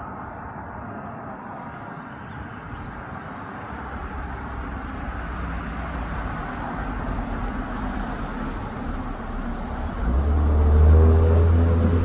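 Road traffic passing, the noise slowly building. About ten seconds in, a motor vehicle comes close, its engine hum low and loud.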